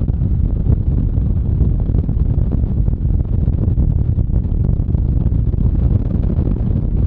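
Wind buffeting the microphone of a moving car, over road noise, as a steady loud low rumble.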